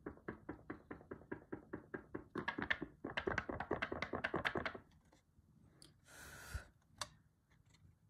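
Rapid light tapping on a desk's cutting mat, about ten taps a second for roughly five seconds. It is followed by a brief rustle and a single click.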